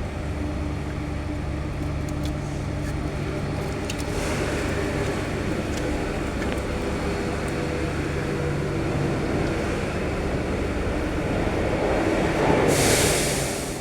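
A steady low mechanical hum, thickening with noise about four seconds in, with a louder hiss lasting about a second near the end.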